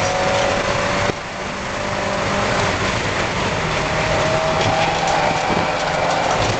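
Spec Miata race car's four-cylinder engine running on track, heard from inside the cabin over a steady rush of wind and road noise. The sound drops sharply about a second in, then builds again as the engine note slowly rises in pitch.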